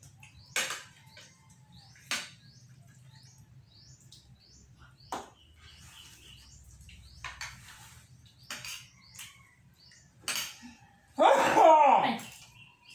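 Spoons and forks clicking now and then against plates during a meal, with small birds chirping faintly in the first few seconds. About eleven seconds in, a loud vocal burst lasting about a second.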